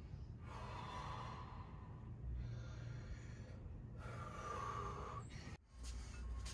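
A man breathing hard with effort: two long, heavy breaths out, a couple of seconds apart, over a steady low hum. The sound cuts off suddenly near the end.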